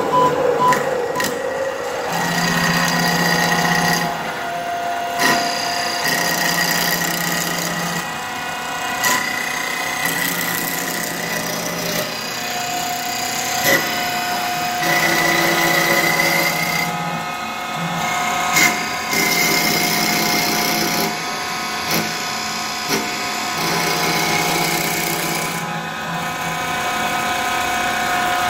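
STYLECNC STL3080 mini CNC wood lathe running and turning a wooden blank: the motor whine shifts pitch every couple of seconds as the cutter works along the wood, with a low hum switching on and off and scattered clicks.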